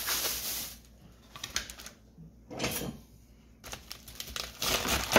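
A plastic produce bag crinkling as a head of romaine lettuce is pulled out, then a knife cutting through the romaine on a plastic cutting board in a few separate strokes, the loudest near the end.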